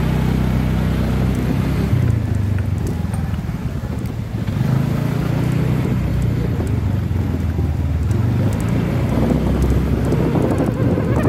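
Motorcycle engine running at low, steady revs while riding, with some wind on the microphone.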